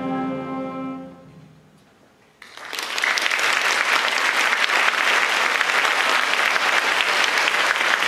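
A jazz big band's final held chord of brass and saxophones dies away, and after a brief pause the audience starts applauding about two and a half seconds in. The applause is steady and loud and lasts through the rest of the clip.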